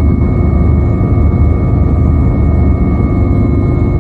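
Steady engine drone of an aircraft in flight, heard from inside the cabin, with a constant hum and several steady tones running unchanged.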